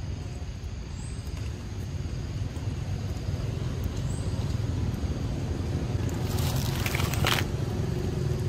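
Steady low outdoor rumble, with a brief scratchy rustle about six to seven seconds in.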